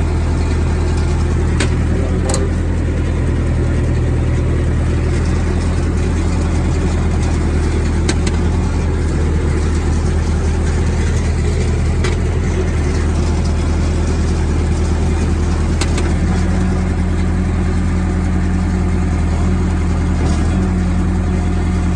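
John Deere 450E crawler dozer's diesel engine running steadily, with a few isolated short clicks. Its note changes slightly about three-quarters of the way through.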